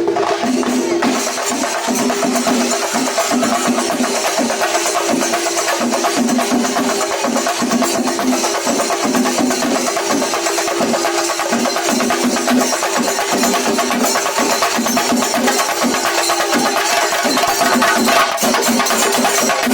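Singari melam ensemble of chenda drums with ilathalam cymbals playing a fast, dense rhythm at steady full volume, stick strokes following closely on one another.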